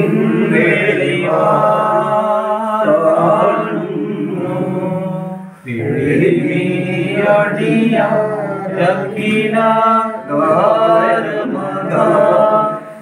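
Unaccompanied chanting: voices singing a slow, drawn-out hymn melody, with a short break about six seconds in.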